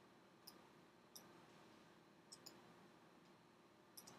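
Faint computer mouse clicks, about six sparse sharp clicks with two close pairs, over near-silent room tone.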